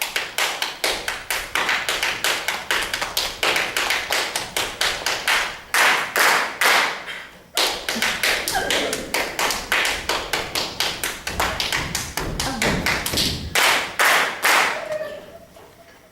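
Fast rhythmic tapping played on drinking glasses and cutlery on a table, a percussion rhythm made with tableware. The tapping breaks off briefly about halfway and stops about a second before the end.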